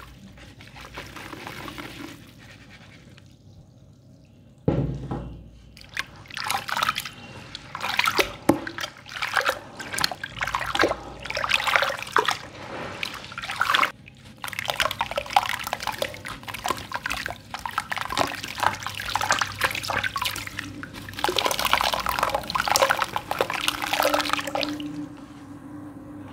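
Dry sand-cement block crumbled by hand over a tub of water: gritty crumbling with chunks and grains splashing and plopping into the water. It is quieter for the first few seconds, then a dense run of irregular crackles and splashes starts about five seconds in and eases off near the end.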